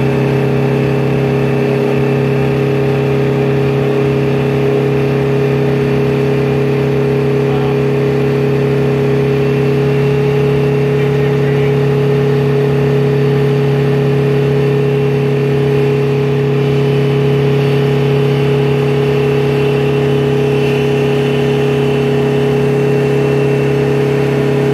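Oshkosh heavy truck's diesel engine running hard under heavy load, pulling trucks up a hill, with a loud, steady pitch that holds constant throughout.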